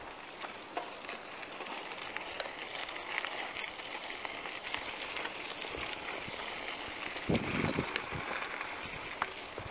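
Bicycle tyres rolling over a gravel dirt road, a steady crunching crackle of small stones under the wheels, with a brief louder low rumble about seven seconds in.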